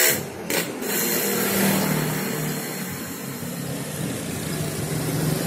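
A motor vehicle engine running steadily, a low hum with a brief drop in level just after the start.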